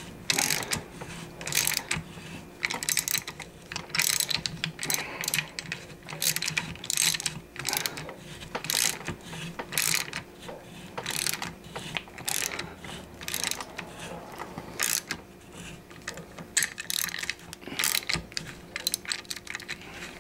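Ratcheting tap handle clicking in repeated short bursts as a tap is turned in, cutting new threads in a stripped spark plug hole of an outboard cylinder head to take a thread-repair insert.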